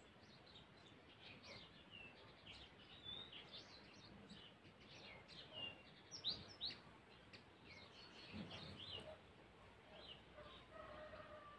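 Small birds chirping and twittering: many short, quick calls, busiest in the first two-thirds and thinning towards the end. Near the end a faint, slowly falling tone from something further off is heard beneath them.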